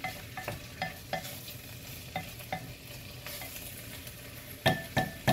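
A wooden spoon stirs diced vegetables sautéing in an amber glass pot. It knocks against the glass every half second or so with short ringing clinks, over a soft sizzle. Two louder knocks come near the end. The vegetables have been sautéed until translucent.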